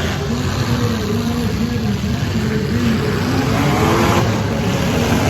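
Demolition derby cars' engines revving hard, their pitch repeatedly rising and falling, with one longer rising rev near the end, over a continuous engine noise.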